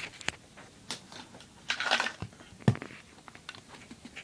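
Close handling noise as the recording iPod and things near it are moved about: scattered clicks, a short rustling scrape just under two seconds in, and one sharper knock shortly after.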